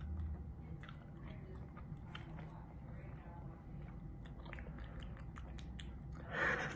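A person chewing a jelly bean close to the microphone: faint mouth sounds with scattered small wet clicks. A brief burst of voice or laughter comes in near the end.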